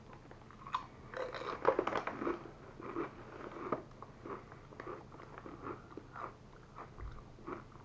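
A crisp tortilla chip (Paqui ghost pepper chip) being bitten and chewed with the mouth open. The loudest crunching comes in the first two seconds or so, then thins to softer, scattered crunches mixed with the rustle of the chip bag as a hand reaches in.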